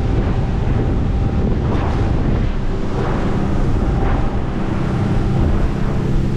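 Boat running at speed over open water: steady wind noise on the microphone and water rushing past the hull, with a low engine hum underneath.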